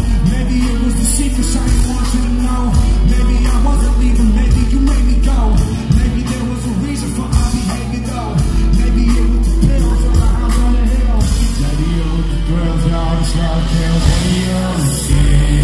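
Live band music with a male lead vocal singing over heavy bass and pounding drums, picked up from within the audience. The music eases briefly just past the middle before building back up.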